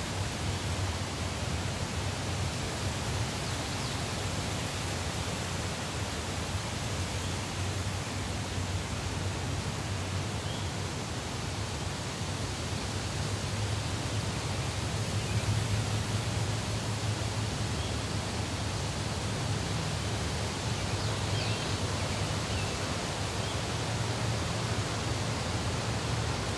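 Steady, even rushing background noise, an outdoor ambience that holds unchanged throughout, with a low hum underneath and a few faint, short high chirps.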